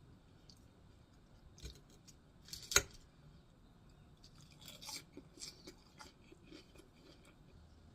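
Close-miked eating of barbecue ribs: quiet wet mouth clicks and chewing crackles, with one sharp click a little under three seconds in and a run of smaller clicks a couple of seconds later.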